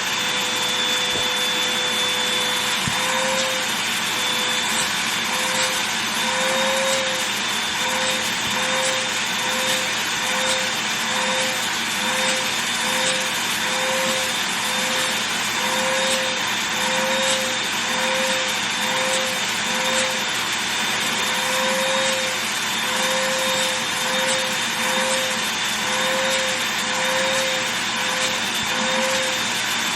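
Vacuum cleaner running steadily over a fabric duffel bag, its motor tone lifting briefly about once a second from a few seconds in.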